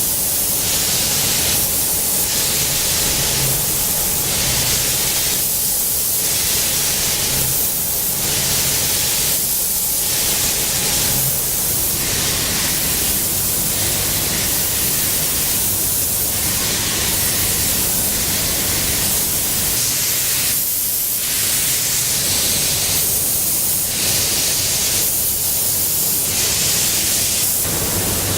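Steady, loud hiss of broad noise that dips and swells about every two seconds.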